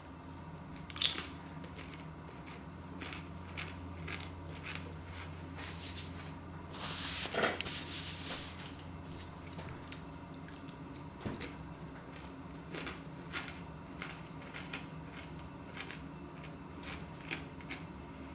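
Lobster-flavoured potato crisps being crunched and chewed, many short crisp crackles one after another, with a louder crackle for a second or so about seven seconds in.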